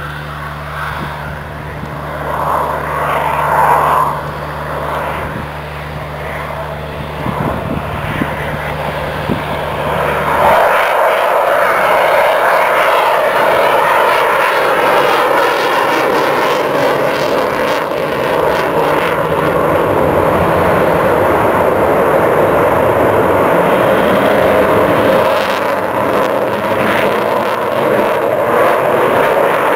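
RAF Eurofighter Typhoon's twin EJ200 turbofan jet engines: a loud, steady rushing jet noise as the fighter flies its display. Under it for the first ten seconds sits a low steady hum, which cuts off suddenly; the jet noise is louder after that.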